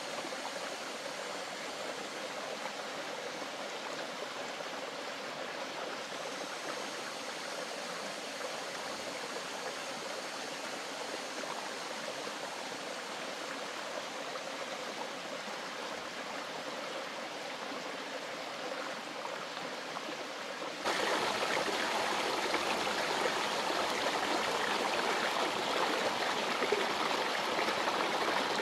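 Steady rush of flowing stream water, stepping up abruptly to a louder, fuller rush about 21 seconds in.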